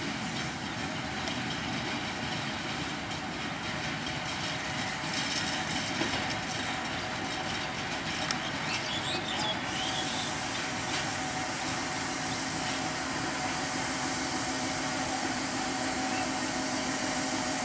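WDM-3A diesel-electric locomotive engine running as the train rolls slowly in, growing a little louder as it nears. A steady high hiss joins about ten seconds in.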